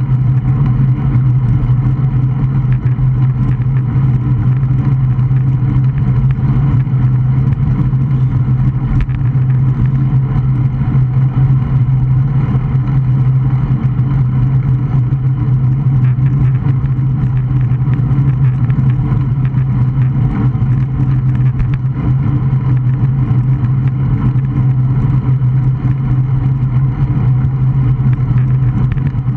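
Steady wind rush and road noise on a Garmin VIRB action camera's microphone while riding a road bike. It is loud and unchanging, with a deep rumble.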